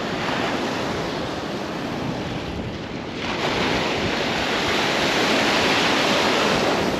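Ocean surf breaking and washing around at close range, getting louder about three seconds in as a wave breaks just in front and its foam rushes past.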